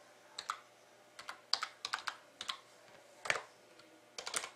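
Typing on an HP computer keyboard: a dozen or so keystrokes in irregular small clusters, the loudest about three seconds in.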